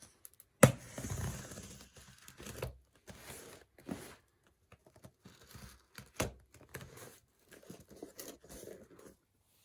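A small shipping package being torn open by hand: packaging tearing and crinkling in irregular rustles, with a sharp snap just under a second in as the loudest sound.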